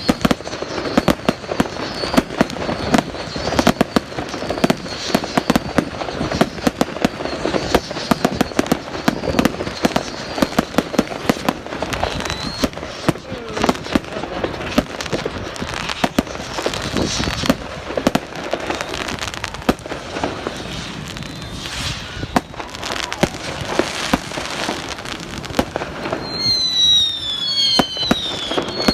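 Fireworks display: a dense run of crackling and popping bursts, with several short falling whistles near the end.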